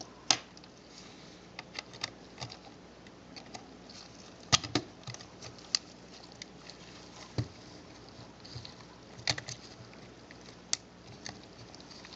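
Scattered small clicks and taps of a Panasonic Lumix ZS10 compact camera's plastic back cover being fitted over the body and pressed into place by hand, with a couple of sharper snaps about four and a half and nine seconds in.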